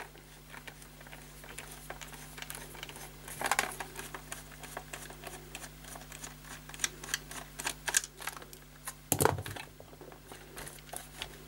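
Precision screwdriver undoing screws from the back of a 1980s Bush clock radio, with the case being handled: a run of small clicks and taps, a louder knock about three and a half seconds in and a heavier thump about nine seconds in.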